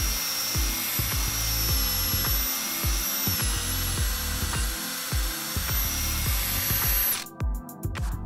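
Makita cordless drill driver boring a pocket hole with a Kreg stepped drill bit through the jig into a pine board: a steady high motor whine with the bit cutting wood, dipping slightly in pitch midway under load, then stopping suddenly about seven seconds in. Background music with a beat plays underneath.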